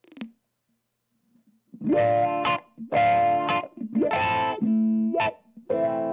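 A short click, then from about two seconds in, distorted electric guitar chords played through a Dunlop 535Q Cry Baby wah pedal: rhythmic chord strikes about once a second, the tone sweeping upward on each as the treadle is rocked.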